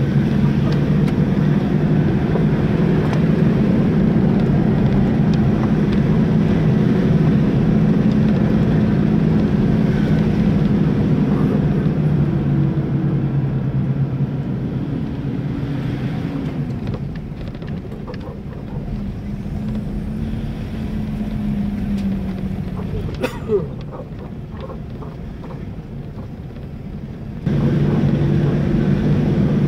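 Vehicle engine running under way, heard from inside the cabin as a steady hum. About halfway through it eases off and drops quieter, a single sharp knock sounds a few seconds later, and near the end the engine sound comes back suddenly at full level.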